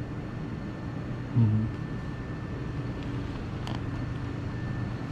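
Steady low mechanical hum of running background machinery. A brief voice sound comes about a second and a half in, and a small click near the end.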